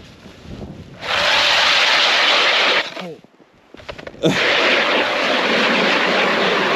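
Power ice auger drilling a test hole through lake ice to check its thickness. The noise starts sharply about a second in, stops briefly about three seconds in as the motor winds down, then starts again and runs on.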